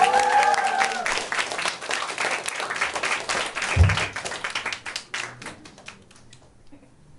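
Audience applauding and cheering after a live rock song, with a rising whoop at the start and one low thump about four seconds in; the clapping thins out and dies away about six seconds in.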